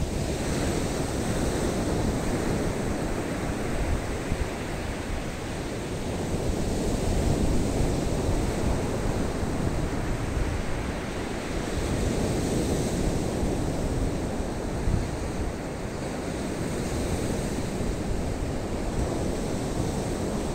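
Rough-sea surf breaking on a sandy beach, a steady wash of noise that swells and falls in slow surges, with wind buffeting the microphone.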